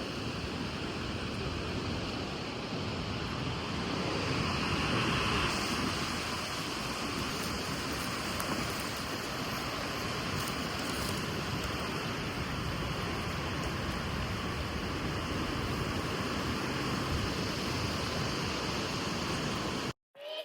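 Steady rushing wind noise on the microphone, swelling slightly about four to six seconds in.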